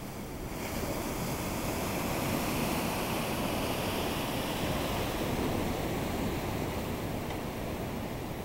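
Ocean surf: a wave breaking and its foam washing over the shallows, a steady rush that builds about half a second in, is strongest in the middle and eases off near the end.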